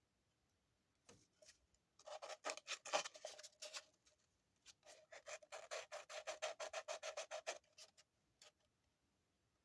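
Sandpaper rubbed by hand against the edge of a sterling silver ring in two runs of quick back-and-forth strokes, about eight a second, to smooth away the solder seam.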